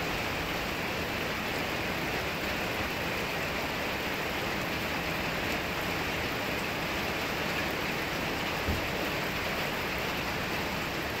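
Steady rain falling, an even hiss throughout, with one brief low thump about three-quarters of the way through.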